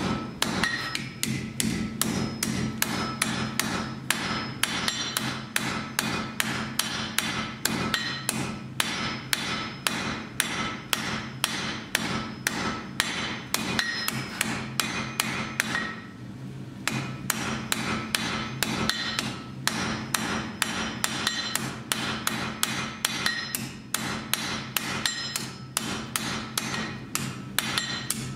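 Blacksmith's hand hammer striking iron on an anvil in a steady rhythm of about two to three blows a second, some blows ringing briefly. There is a short pause about halfway through, and a steady low hum runs underneath.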